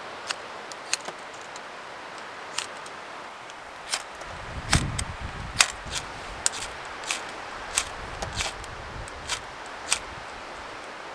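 Small wood fire of kindling crackling: irregular sharp pops and snaps, more than a dozen, over a steady hiss.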